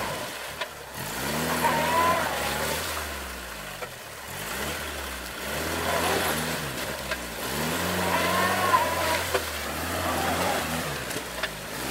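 Old Willys-style jeep's engine revved up and dropping back again and again, every second or two, as the jeep struggles to drive through a deep river ford.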